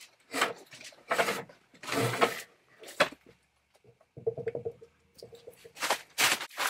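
A heavy elm log being shifted and stood on end on wooden boards: a series of irregular scrapes and knocks of wood on wood.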